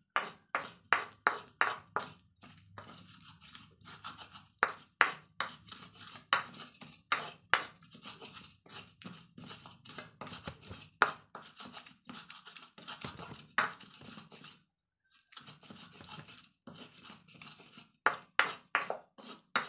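Pestle knocking and grinding in a mortar (Indonesian cobek and ulekan), pounding a moist paste of red chili, garlic and candlenut. Sharp strokes come about twice a second at first, then more unevenly, with a short pause about three-quarters of the way through.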